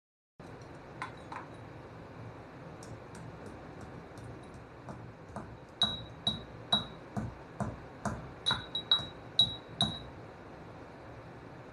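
Cardamom pods being crushed inside a folded paper, pounded with a small hand tool: a run of sharp knocks, scattered at first and then about two a second, each with a brief high ring.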